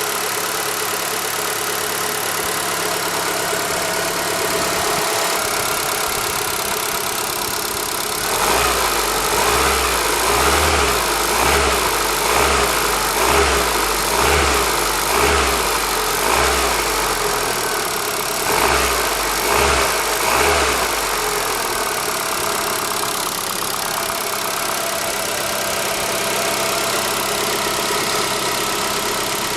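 ZAZ Forza petrol engine idling with a ticking under the bonnet, then revved in a series of about a dozen short throttle blips a little under a second apart, about 8 to 21 seconds in, before it settles back to idle. The owner suspects the ticking comes from the hydraulic lifters or the injectors.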